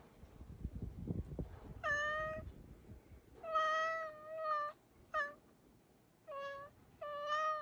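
A black cat chattering at a bird outside the window: about five thin, chirping meows, one of them longer, after a few dull low knocks in the first second or so.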